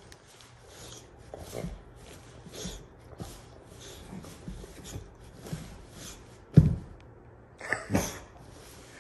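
Boxer dog burrowing her head and paws under a plush dog bed: fabric rubbing and scuffling in short bursts every half second or so. One loud thump comes about two-thirds through, and two more sharp knocks follow near the end.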